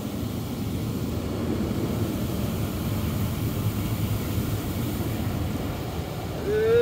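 Automatic car wash spraying water over the car, heard muffled from inside the cabin as a steady rushing. A single voice-like call rises in pitch at the very end.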